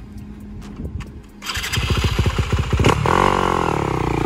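Yamaha YZ250F's four-stroke single-cylinder engine idling, then about a second and a half in suddenly opening up to loud revs as the dirt bike pulls away. Its pitch dips briefly, then climbs and holds high.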